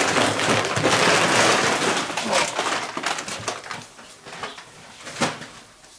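A paper sack of charcoal briquettes being handled: a loud, dense crackling rustle for about two and a half seconds, then scattered clicks and a single sharp knock about five seconds in.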